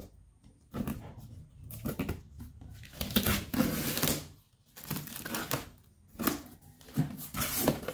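Scissors cutting open a cardboard box, the cardboard rasping and crackling in several irregular bouts.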